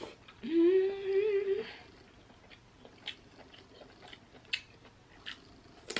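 A drawn-out 'mmm' hum of enjoyment lasting about a second, rising briefly then held. It is followed by scattered small clicks and smacks of eating.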